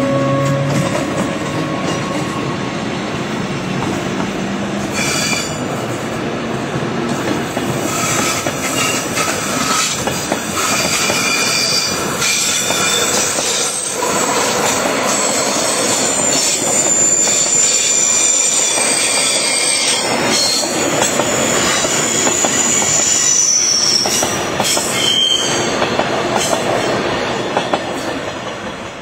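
Rhaetian Railway Glacier Express, an electric locomotive and panorama coaches, passing close by on the metre-gauge line, with a steady rumble of wheels on rail. High-pitched wheel squeal comes and goes as the coaches run through, and the sound fades near the end as the train draws away.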